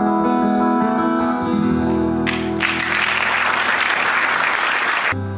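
Two acoustic guitars let the last chords of a song ring, then an audience applauds for about three seconds. The applause cuts off abruptly and the guitars start the next song near the end.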